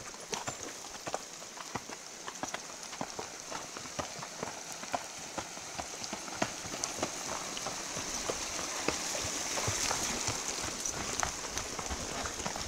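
Horses walking on a rocky, gravelly trail: irregular clicks and knocks of hooves striking loose stone, over a steady hiss that grows a little louder toward the end.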